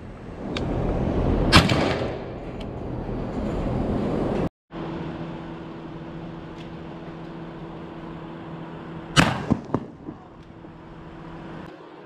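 Two single gunshots: one about a second and a half in over wind rumble on the microphone, the other about nine seconds in over a steady low hum, followed by a few quick knocks.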